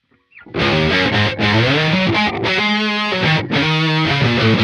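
Electric bass played through an MXR Super Badass Distortion pedal: a heavy distorted riff of held notes. It breaks off at the start and comes back in about half a second later.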